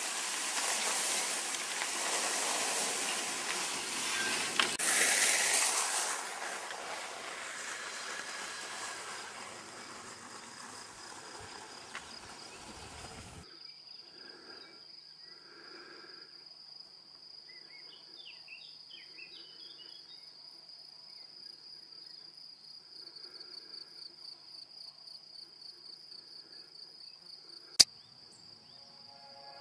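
A steady rushing noise on an outdoor microphone for about the first thirteen seconds, cut off suddenly. Then a quiet, steady, high-pitched insect chirring over a grassy meadow, with a few faint chirps, and a single sharp click near the end.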